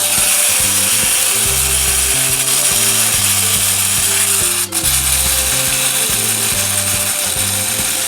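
Clockwork gear mechanism of a wind-up octopus toy running steadily as its legs spin, with a brief break about halfway through.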